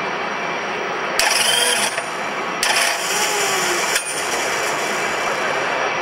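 External handheld starter spinning a Champ Car's turbocharged V8 in two bursts, the first about a second in and the second, longer one just after, over steady pit-lane engine noise. The car is being started in the pits.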